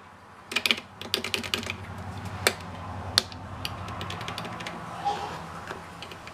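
Clicking of a worn power-supply switch being flicked back and forth: a quick run of clicks, then two sharper single clicks. The owner judges the switch to be shot. A low steady hum runs beneath and fades out near the end.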